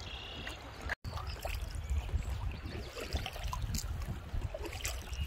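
River water trickling and splashing around a kayak as it is paddled, with scattered small splashes and a steady low rumble underneath. The sound drops out briefly about a second in.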